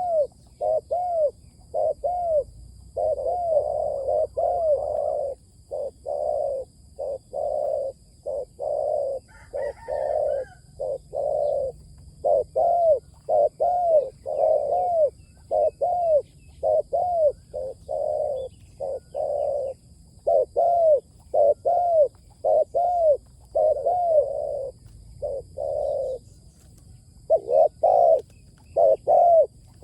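Spotted dove cooing over and over in a long run of short, rounded coo notes, about two a second with brief pauses; this is a decoy bird calling to draw in wild doves.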